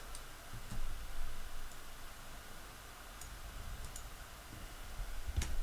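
Faint scattered clicks of a computer mouse and keyboard, a handful over several seconds, over a steady low hum of room noise.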